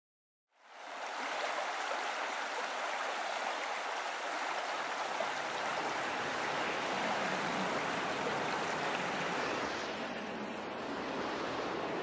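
A steady rushing sound like running water, fading in about half a second in and holding even throughout.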